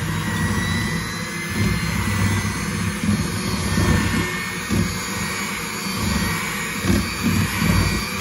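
Electric hand mixer running steadily with a high whine, its two beaters churning peanut butter and butter in a glass bowl.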